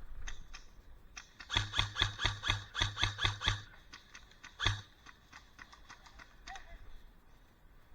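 Airsoft gun firing a quick string of about ten shots, roughly five a second, then one more shot about a second later. Fainter shot clicks follow.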